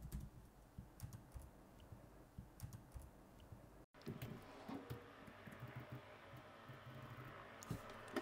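Faint typing on a computer keyboard: scattered, irregular keystrokes.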